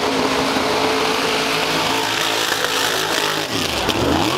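A 1500 hp mud bogger's engine running at high revs, flat out through the mud pit. About three and a half seconds in, its pitch dips sharply and climbs straight back up.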